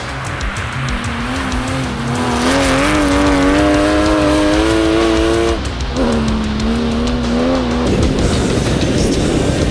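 Porsche 911 GT3 Cup race car's flat-six engine revving hard as the car slides on the ice, its pitch climbing steadily, then dropping sharply at an upshift about five and a half seconds in and pulling again. Near the end it gives way to a rougher, rushing sound with no clear engine note.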